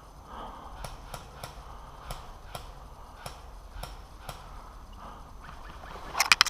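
A series of sharp, irregular clicks, then a rapid burst of about five loud shots from an airsoft gun near the end.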